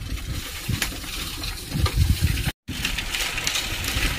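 Outdoor ambience: an uneven low rumble on the microphone with scattered light clicks. It drops out completely for a moment about two and a half seconds in, then picks up again.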